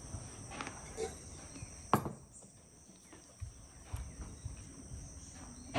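Insects droning steadily and high-pitched in the background, with a few faint taps and one sharper click about two seconds in.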